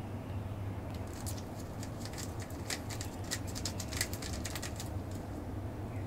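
Rubik's cube lubed with body lotion being turned, its layers giving a quick run of sharp, irregular clicks from about a second in until about five seconds in, over a steady low hum.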